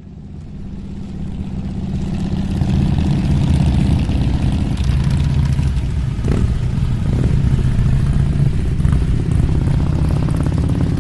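Motorcycle engine running steadily, fading in over the first few seconds, with a couple of short blips about six and seven seconds in.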